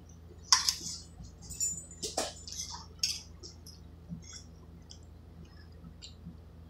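Eating spaghetti: slurping and chewing noodles, with a metal fork clinking and scraping in a stainless steel pot. A few sharp sounds come in the first three seconds, then only soft chewing and small ticks.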